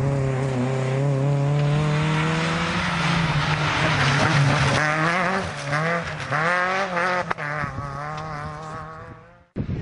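Renault Clio rally car's engine at high revs as it passes, held steady at first, then dipping and rising repeatedly with throttle lifts and gear changes. It cuts off suddenly near the end.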